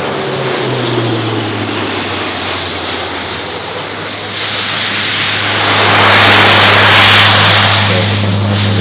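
Turboprop military transport aircraft flying past with a steady low engine drone. The noise swells to its loudest about six to seven seconds in, then eases slightly.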